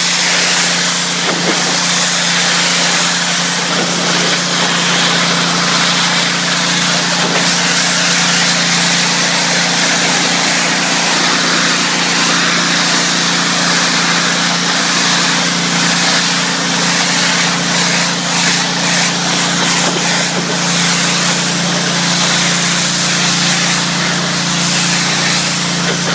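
Pressure washer running with a steady low hum while its water spray hisses against vinyl siding through a 25-degree nozzle tip.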